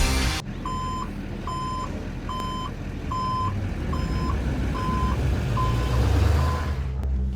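A vehicle's reversing alarm beeping, eight single high beeps a little under a second apart that fade over the last two, over a low engine rumble.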